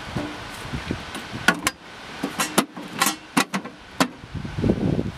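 Hands handling fittings on the metal tender of a 7¼-inch gauge miniature steam locomotive: a series of about eight sharp clicks and knocks, then a low rustling rumble near the end.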